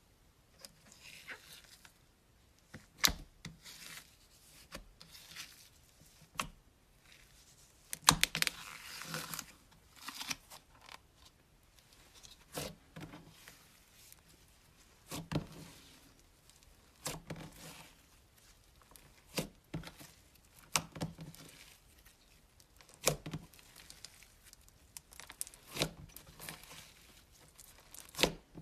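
Slime being handled close up: sticky crackling and squelching, with sharp pops every second or two.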